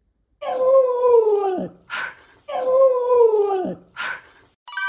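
A Samoyed's drawn-out whining howl that holds its pitch and then drops away at the end, followed by a short breathy huff. The same call and huff come twice, exactly alike. A bright chime rings out just before the end.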